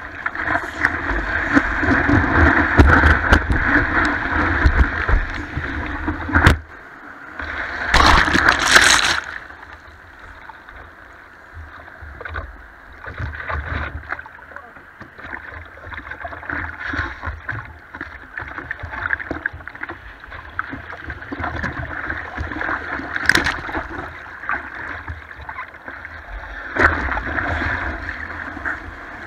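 Breaking whitewater rushing and splashing over a board-mounted action camera as a surfer paddles a surfboard through the surf. A loud splash crashes over it about eight seconds in. The water turns to quieter, choppy lapping, then builds again near the end.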